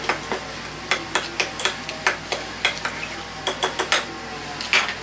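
Cooked crab being picked apart by hand and fork: a string of irregular sharp clicks and taps as shell pieces crack and a fork strikes and scrapes the shell and dishes.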